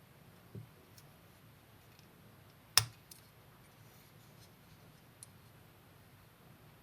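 A few isolated small clicks and taps of hard parts being handled: a soft knock near the start, one sharp click about three seconds in, and a couple of faint ticks later, over a faint steady hiss.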